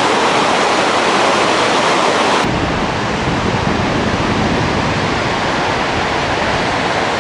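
Steady, loud rushing of a fast mountain river in the gorge below. About two and a half seconds in the sound shifts and a deeper rumble comes in.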